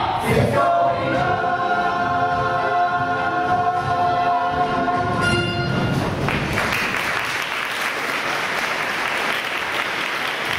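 A musical-theatre ensemble sings and holds the final chord of a number until about six seconds in. Audience applause then takes over.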